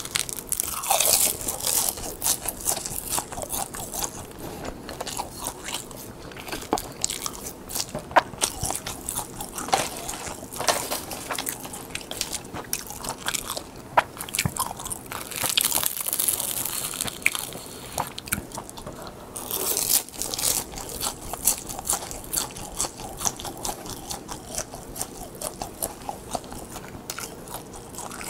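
Close-miked biting and chewing of crisp seasoned laver (gim) sheets stacked together. A steady run of crackly crunches comes with a few longer, louder crunching spells.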